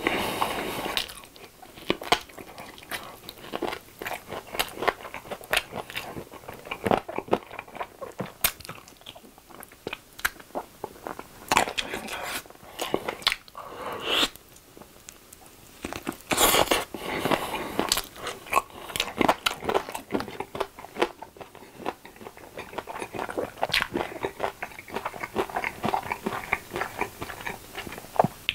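Close-miked biting and chewing of sauce-glazed Korean fried chicken drumsticks (yangnyeom chicken), the coating crunching, with many irregular sharp clicks and a few louder bites.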